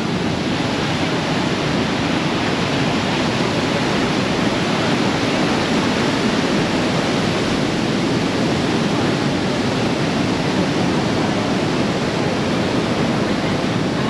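Steady rush of Manavgat Waterfall, a broad, low river cascade of white water pouring over a wide rock ledge, an even, unbroken roar of falling water.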